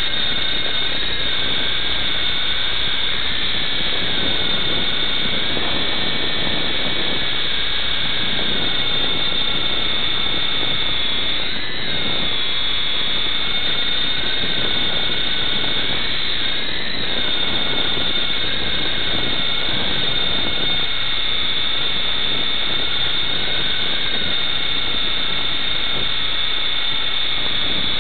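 Blade MD520 RC helicopter's electric motor and rotors whining steadily in flight. The pitch wavers up and down with the throttle and swings up briefly twice, about halfway through and a little later.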